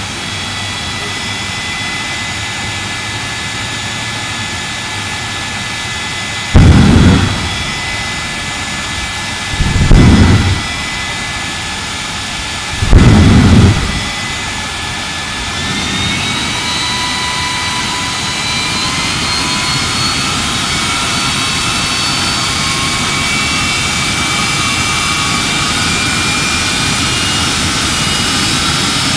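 Jet engine of a jet-powered show fire truck running with a steady turbine whine. It gives three short, loud, deep bursts of thrust a few seconds apart, about a quarter and then half of the way in, blasting a junked van with exhaust and smoke. Over the second half the whine climbs in pitch as the engine spools up.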